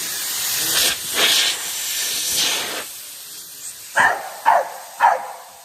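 A steady hiss for the first few seconds, then a dog barks three times, about half a second apart.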